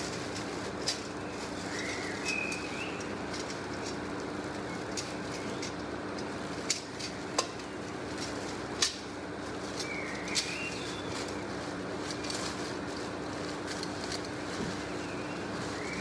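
Plastic-wrapped grill parts being handled, giving a few sharp clicks and knocks, over a steady background hiss with a low hum. A bird chirps briefly a couple of times.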